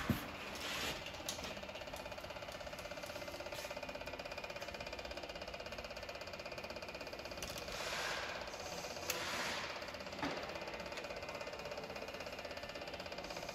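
Light clinks and scrapes of steel fuel injection lines being handled and fitted onto a Kubota diesel engine's injection pump and injectors, a few short ones about a second in and again later, over a steady mechanical hum with a fast, even pulse.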